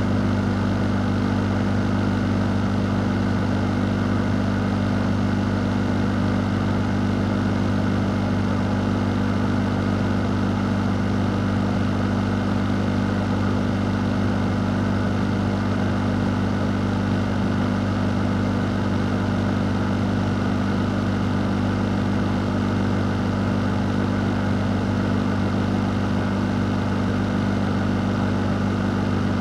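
A fan running steadily: a constant low hum under an even rush of air, unchanging throughout.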